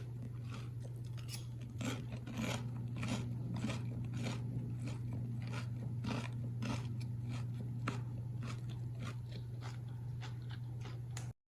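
Crisp breaded fried pork chop crunching as it is bitten and chewed, in a steady run of crunches about two a second, over a steady low electrical hum.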